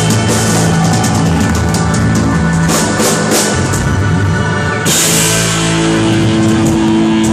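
Live band with acoustic guitar and drum kit playing loudly, drum strikes under sustained chords. A cymbal crash comes about five seconds in, and the band then holds a long chord as the song ends.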